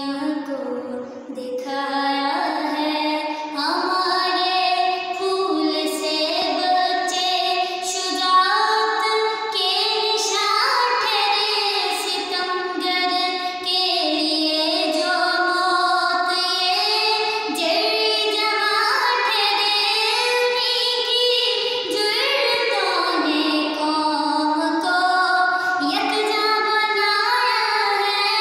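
A young girl singing solo, without accompaniment, in long drawn-out notes that step up and down in pitch.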